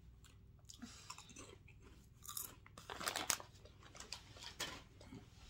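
Crunchy Lay's potato chips being bitten and chewed: irregular crisp crunches, with a few louder ones in the middle and again near the end.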